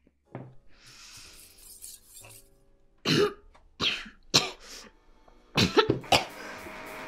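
A woman coughing hard in a series of short, sharp coughs, starting about three seconds in and bunching together near the end, as she chokes on a mouthful of food.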